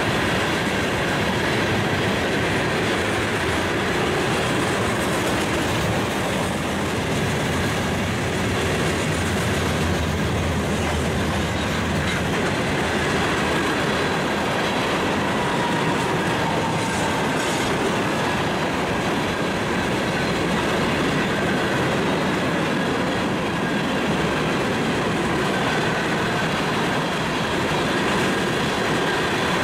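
Freight train rolling past: the steel wheels of tank cars and then hopper cars clattering steadily over the rails, with a faint high squeal from the wheels.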